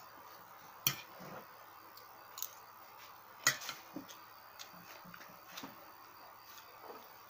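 A few sharp clicks and light knocks at irregular times, the loudest about a second in and about three and a half seconds in, over a faint steady low hum.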